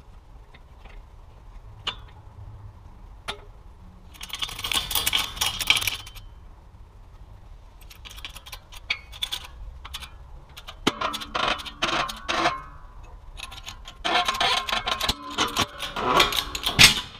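Metallic clinking and scraping of a rusty front strut housing shifting against the steel plates and ram of a shop press while it is positioned for pressing out the wheel bearing. Scattered single clicks, then three bursts of rapid clatter, the last and longest near the end.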